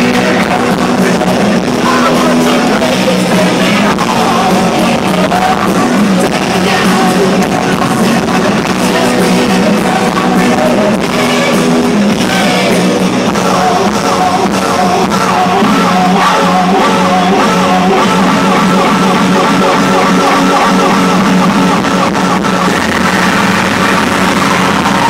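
Loud, dense hardcore techno music with a voice over it, playing without a break.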